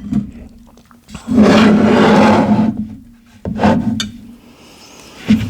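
A person's voice making a loud, drawn-out wordless noise for about a second and a half, with shorter, quieter voiced sounds after it.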